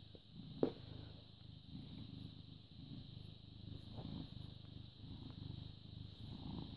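British Shorthair cat purring close to the microphone: a continuous low rumble that swells and eases in waves. A single sharp knock comes about half a second in.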